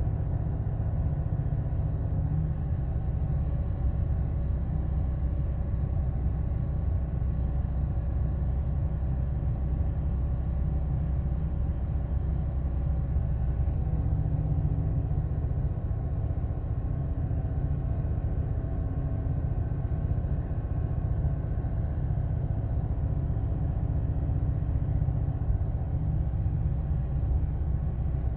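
Ford 6.8-litre V10 engine running steadily at idle, with a low, even rumble; the engine has a misfire that the owner is trying to track down.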